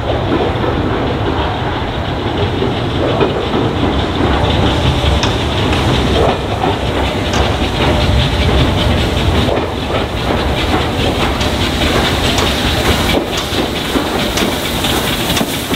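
LMS Royal Scot class three-cylinder 4-6-0 steam locomotive No. 46100 running slowly into a station platform with its train. A steady noise, with many light clicks from the wheels over rail joints and pointwork.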